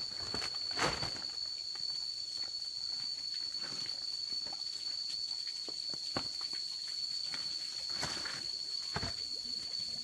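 Footsteps and scattered rustles over a steady high-pitched whine.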